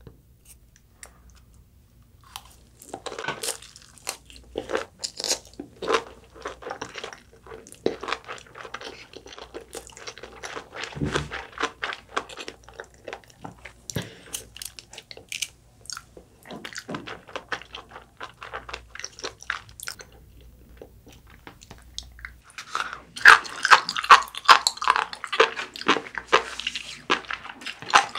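Close-miked chewing of a mouthful of sea grapes and sushi: many sharp, crisp clicks and crunches in quick succession, thinning out midway and loudest near the end.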